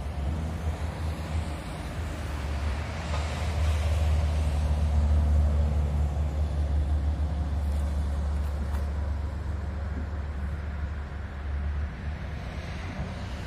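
Diesel engine of heavy construction machinery running steadily: a low drone that grows louder toward the middle and eases off near the end.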